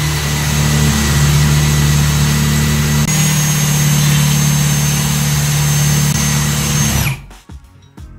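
Aimsak 22V cordless hammer drill driver running steadily under load as it tries to drive a self-drilling screw into 12 mm steel H-beam that is too thick for it to get through; the motor stops abruptly about seven seconds in.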